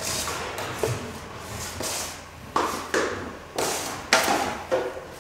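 Steel drywall knife scraping joint compound across a steel trowel and hawk: a series of short metal-on-metal scrapes and clinks as the mud is loaded and worked on the tools.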